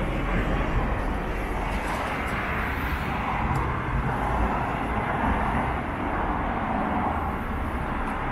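Yamaha JOG 50cc scooter engine idling steadily.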